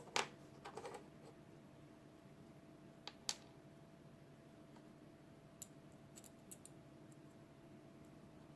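A few sharp light clicks and taps of small hard parts being handled: a loud click at the start, a short cluster about a second in, two more about three seconds in, and faint ticks later. A faint steady hum runs underneath.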